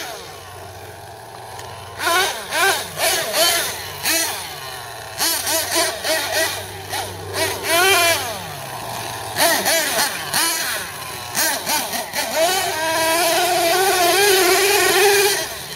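Nitro RC monster truck engine, a Team Associated MGT 8.0, revving up and down in repeated bursts of throttle. It is quieter for the first couple of seconds, then held at high revs for about three seconds near the end.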